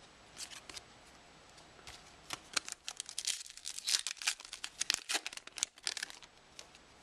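A foil trading-card pack wrapper being torn open and crinkled: a few light rustles, then about three and a half seconds of dense, sharp crackling from a little over two seconds in.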